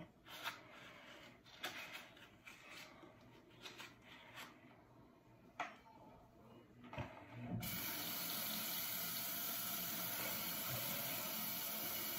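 Small handling clicks and rustles, then about seven and a half seconds in a bathroom tap is turned on and water runs steadily into the sink.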